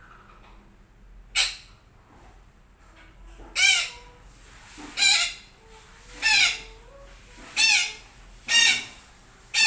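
Sumatran betet parakeet giving a series of seven harsh, screeching squawks, each brief and spaced about a second or so apart.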